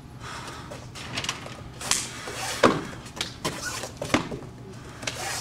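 Sharp slaps and snaps from a martial artist's hand strikes and gi during a kenpo form: several irregularly spaced cracks, the loudest about halfway in.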